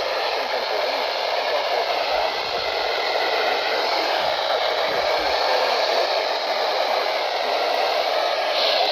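Steady hiss of radio static from a weakly received radio broadcast.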